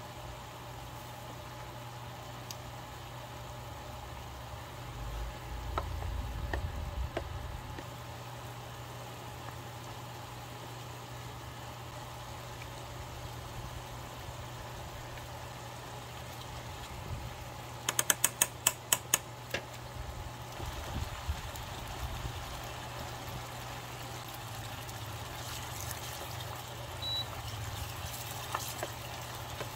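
Ground pork simmering in liquid in a ceramic-coated frying pan on an induction cooktop, over a steady low hum. About two-thirds of the way through comes a quick run of about eight sharp taps, a spoon knocked against the pan, and near the end a spatula scrapes as it stirs.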